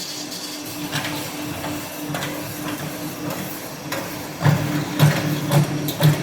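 Hydraulic duct elbow-forming machine running: a steady hum with scattered clicks and knocks, and several heavier thumps in the last couple of seconds.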